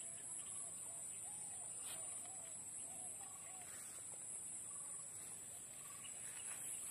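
Faint bird calls: a run of short, arching notes repeated about twice a second, over a steady high-pitched hiss.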